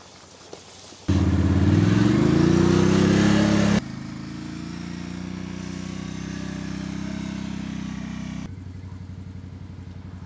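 Quad ATV engine, starting about a second in with a loud rev whose pitch climbs, then running steadily and more quietly, and near the end idling with a rapid even pulse.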